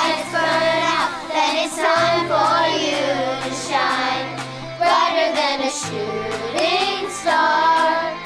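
Children singing a song together over instrumental accompaniment with sustained bass notes.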